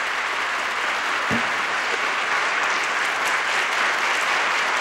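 Studio audience applauding steadily, with a brief low thump about a second in.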